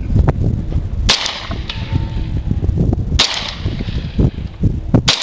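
Three pistol shots from a semi-automatic handgun, about two seconds apart, each followed by a short echoing tail.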